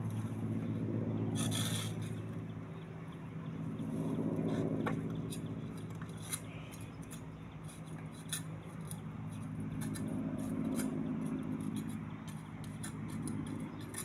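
Mi-8 helicopter heard from a distance: a steady low drone that swells and fades every few seconds, with faint light ticks scattered over it.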